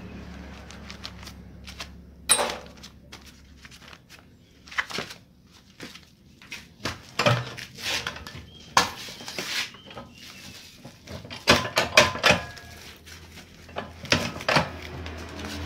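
Cement-sack paper being handled, folded and cut with scissors: irregular crisp rustles, snips and light metallic clicks, clustered in bursts.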